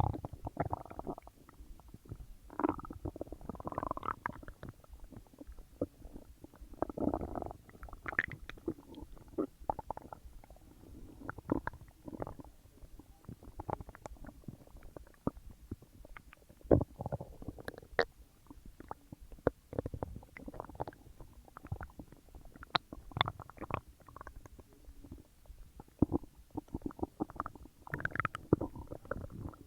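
Stomach and intestines gurgling and rumbling as a large meal digests, in irregular bubbling swells and short sharp pops with brief pauses between.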